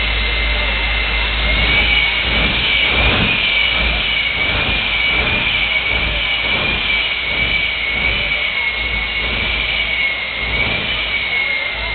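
Jet engine of a jet-powered semi truck running in place, a steady high-pitched whine over constant rushing noise, the whine rising slightly about a second and a half in and wavering a little after.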